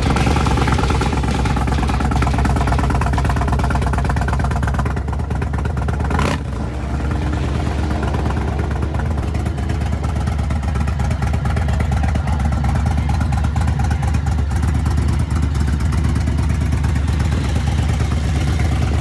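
Indian Sport Chief V-twin engine idling steadily through a Toce slip-on exhaust, with a brief dip about six seconds in.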